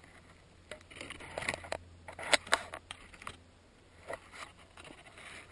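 Close crackling and scraping handling noise in irregular bursts, with two sharp clicks about two and a half seconds in and a few softer ones near the end.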